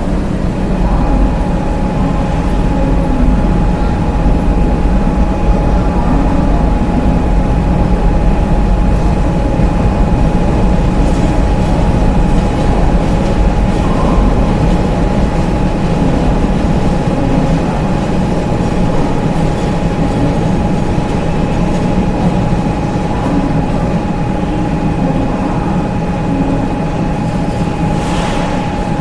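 Train running: a loud, steady low rumble with a steady whine that sets in about a second in.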